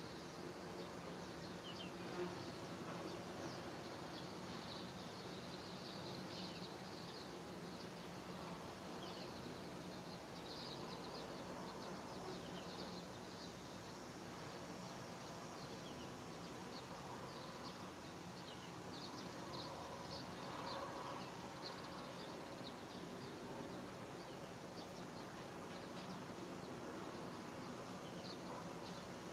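Faint, steady outdoor ambience: a low buzzing hum runs throughout, with many short, scattered high chirps.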